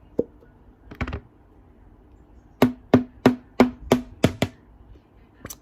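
A short rustle about a second in, then six quick hollow knocks in a row, about three a second, from something hard being tapped.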